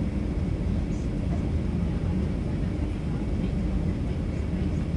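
Steady low rumble inside the cabin of an Airbus A330 on final approach, engine and airflow noise heard from a seat over the wing with the flaps extended.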